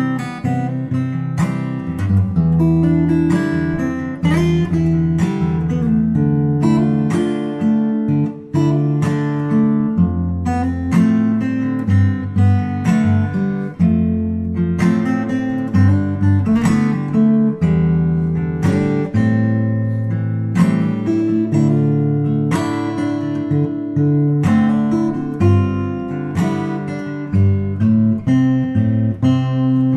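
Background music played on acoustic guitar, with steady strummed and plucked chords.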